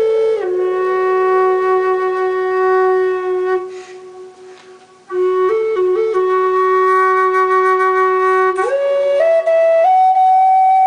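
Background music: a solo flute playing a slow melody of long held notes. It breaks off about four seconds in, resumes a second or so later, and climbs higher near the end.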